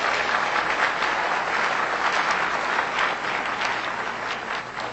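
Audience in a large hall applauding. The clapping holds steady, then thins and fades away in the last second or two.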